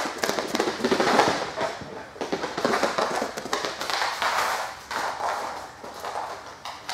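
A large dog's claws clicking and scrabbling on a hard concrete floor as it runs out and back on a retrieve, with scattered taps and knocks.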